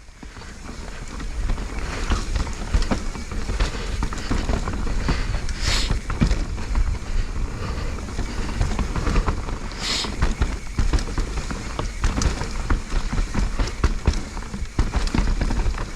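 Mountain bike descending a rooty downhill trail: a steady rumble of tyres over dirt and roots with constant rattling and knocks from the bike. Two short hisses about six and ten seconds in.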